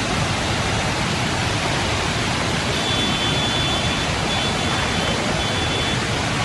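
Steady, loud rush of turbulent storm water. A faint, thin high tone comes and goes through the second half.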